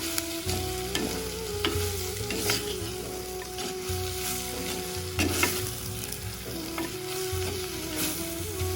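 Dried fish frying in hot oil in a pan with a steady sizzle, while a spoon stirs it and scrapes against the pan every second or so.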